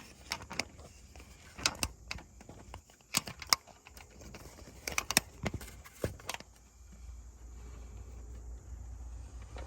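Irregular sharp metallic clicks and clinks of hand tools and a rocker arm being worked in an engine's valve train, with the arm catching on the camshaft. The clinks stop about six seconds in, leaving a low steady rumble.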